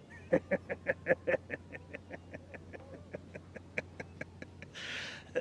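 A man laughing mockingly: a run of "ha" bursts, about five a second, loud at first then fading and slowing, ending in a breathy rush of air near the end.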